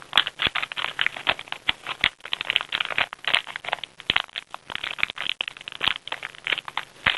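Small items from a pocket survival kit being taken out and handled by hand: irregular rattling, clicking and crackling.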